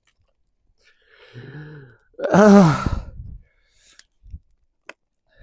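A man's wordless sigh: a faint low hum, then a loud breathy sigh falling in pitch about two seconds in. A couple of faint clicks follow near the end.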